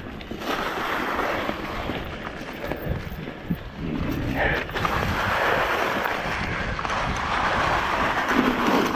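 Mountain bike riding along a trail covered in dry leaves: wind rushing over the microphone, the tyres rolling through the leaves, and occasional knocks and rattles from the bike over bumps.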